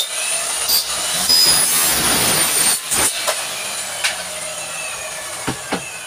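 Handheld electric drill running at high speed, boring into an aluminium frame profile, with a high whine over the cutting noise. It stops about three seconds in, and a lower steady noise with a few clicks of handled metal parts follows.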